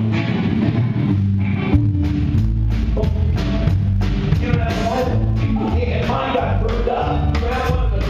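Live band playing an upbeat rock song on electric guitars, bass and drums, with a steady driving beat and a bass line that moves in even steps.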